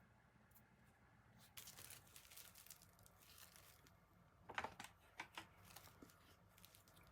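Faint rustling and crinkling from hands handling kitchen materials, followed about four and a half seconds in by a few light clicks.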